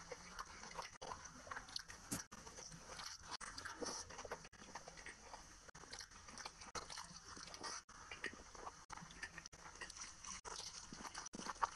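Close-up wet chewing and mouth smacks of a person eating curry and rice by hand, a steady run of small clicks. Near the end comes the squelch of fingers mixing rice into gravy.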